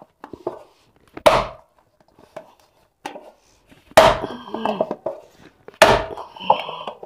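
Soft bhatura dough slammed down into a stainless steel bowl: three heavy thuds about two seconds apart, each with a brief ring after it. This is the dough being beaten ("पटकना") to make it soft and smooth.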